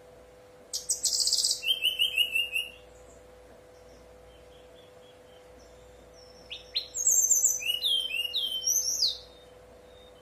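Brown-chested jungle flycatcher (sikatan rimba dada coklat) singing: two quick phrases of high, fluty whistled notes, the first about a second in and the second about six and a half seconds in, each lasting two to three seconds.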